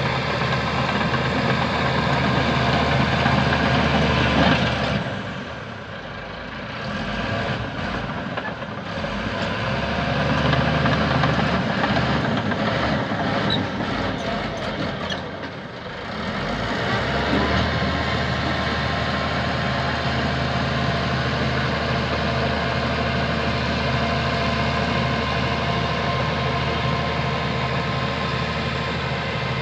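Heavy diesel engine of earthmoving equipment running steadily. Its sound drops away about five seconds in, swells and dips again, and comes back steady from about seventeen seconds on.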